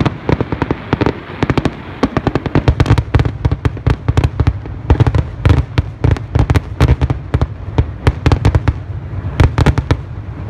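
Fireworks going off in a rapid, continuous string of sharp bangs and crackles, several a second, over a low rumble.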